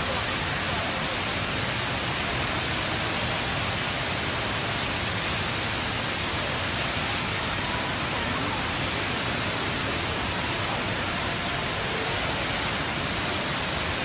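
Rain Vortex, the tall indoor waterfall at Jewel Changi Airport, pouring from the glass dome into its pool with a steady rushing hiss.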